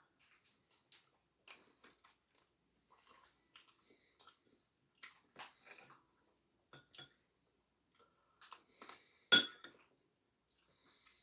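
Close-up eating sounds of cake: soft, scattered chewing and mouth clicks, with one sharp, louder clink about nine seconds in.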